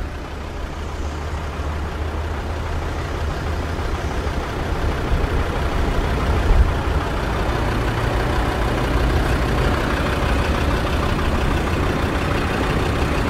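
Land Rover Discovery 2's engine idling steadily, heard from inside the cabin as a constant low hum.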